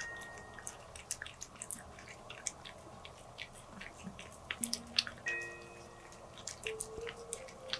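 A cat eating wet pâté from a bowl: a rapid run of small wet smacking and clicking sounds from its tongue and jaws, several a second.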